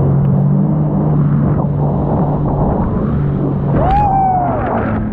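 Sea-Doo jet ski engine running at speed, a steady drone that shifts slightly in pitch, over the rush of water and spray against the hull. A short cry that rises and falls comes about four seconds in.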